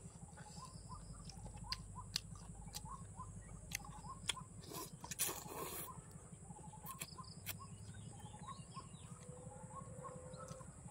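Close-up eating sounds of rice noodles being picked up and slurped by hand, with scattered mouth clicks and a louder slurp about five seconds in. Behind them a bird chirps over and over, about twice a second.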